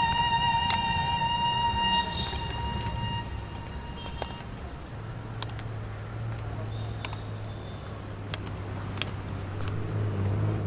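A violin background score dies away in the first two or three seconds. Busy street ambience with traffic follows, with a low steady hum setting in about halfway and scattered small clicks and knocks.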